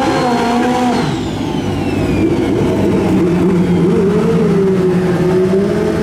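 Pro Street drag bike engines, Hayabusa-based four-cylinders, are held at high revs through the end of a burnout. The revs drop about a second in with a falling whistle, and the engines then run at low, wavering revs as the bike rolls forward to stage.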